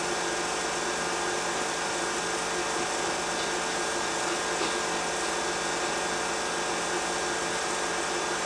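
Steady hiss with a constant low hum and faint fixed tones, unchanging throughout: the background noise of an old 16mm film soundtrack being played back.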